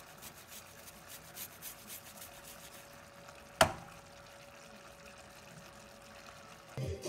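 Garlic cloves rasped on a metal hand grater over a pan of simmering meat: a quick run of scraping strokes, then one sharp metal knock about three and a half seconds in, over a faint hiss of the simmering sauce. Music comes in near the end.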